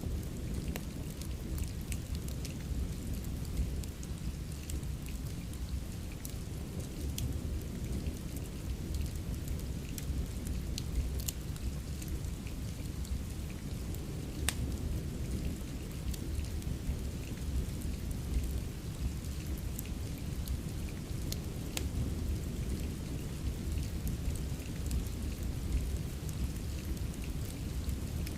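Steady rain with a constant low rumble, mixed with the scattered sharp pops and crackles of a wood fire in a fireplace.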